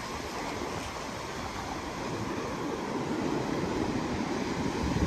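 Ocean surf washing in, mixed with wind rumbling on the phone's microphone; the noise swells toward the end.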